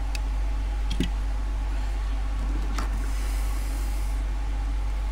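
A few small, sharp clicks of a tool prying at a small plastic push-button switch, the strongest about a second in, over a steady low hum.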